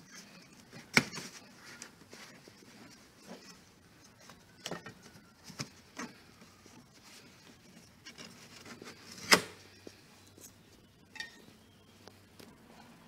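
Scattered clicks and knocks of hands and a screwdriver working on a car's plastic interior door trim while its screws are undone. Two sharper knocks stand out, about a second in and near nine seconds in.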